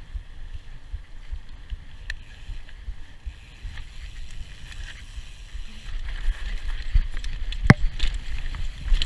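Mountain bike riding fast downhill, with wind buffeting the microphone and tyre rumble. The rumble grows louder and rougher about six seconds in as the bike comes onto a dirt trail, with a couple of sharp clacks from the bike near the end.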